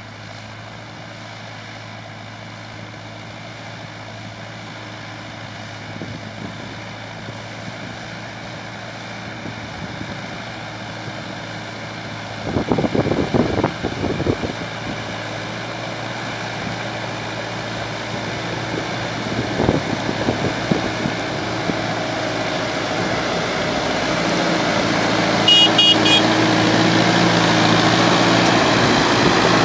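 Deutz-Fahr Agrofarm 115 tractor's diesel engine running steadily under load while pulling a tillage implement through soil, growing louder as the tractor approaches and passes close by. Brief louder rumbles come about halfway through.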